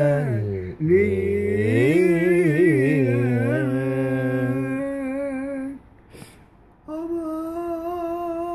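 A man singing a wordless, ornamented Turkish melody into a microphone, his pitch wavering and gliding, with a lower held part under it. The singing breaks off about six seconds in, then comes back as one long steady note.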